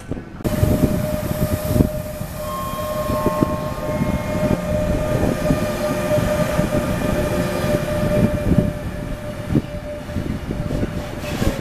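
Freight train of tank wagons behind a Class 186 electric locomotive running through at speed: a steady rumble of wheels on rail with irregular knocks and a steady high whine. It starts suddenly about half a second in.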